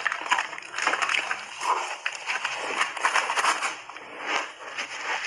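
Close-up chewing and crunching of a mouthful of frozen block ice coated in milk powder: a dense, irregular run of crisp crunches.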